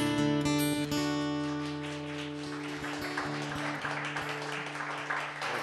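Acoustic guitar strumming chords, the last one held and ringing out, slowly fading.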